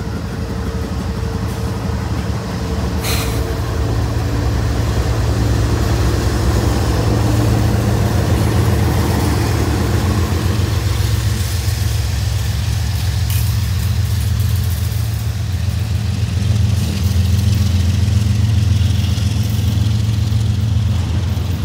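Diesel-electric locomotives of a BNSF freight train passing close by: a steady low engine drone that grows a little louder, over wheel and rail noise. A single sharp click about three seconds in.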